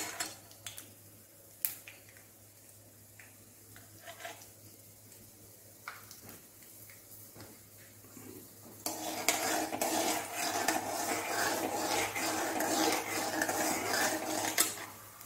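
A steel spoon stirring mustard seeds and dal in hot oil in an aluminium kadai: a few faint clicks at first, then from about nine seconds in a steady run of metal scraping and clinking against the pan, over a light sizzle.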